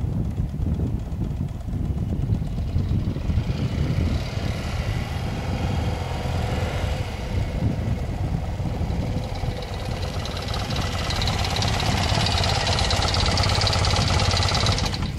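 1983 BMW R65's air-cooled flat-twin engine running steadily at low revs, growing somewhat louder over the last few seconds.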